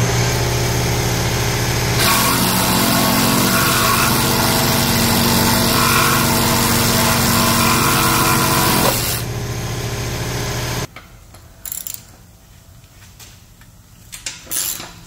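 DeWalt cordless reciprocating saw cutting through a car's factory exhaust pipe to remove the resonator. The motor starts at once, the blade bites into the metal about 2 s in with a harsh rasping over the motor, and it runs free for a moment before stopping about 11 s in. A few light metal clicks follow.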